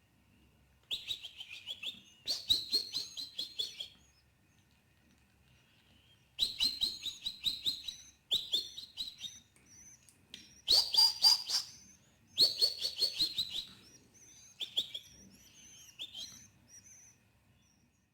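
Fifteen-day-old canary chicks giving begging calls while being fed: repeated bouts of rapid, high chirping, each a second or so long with short pauses between.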